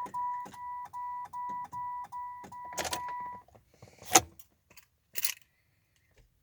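Car's dashboard warning chime beeping rapidly in even pulses, about two and a half a second, then stopping about three and a half seconds in, followed by a few sharp clicks, the loudest a little after four seconds. It happens with the key in the on position on a car that won't start and whose lights click in and out.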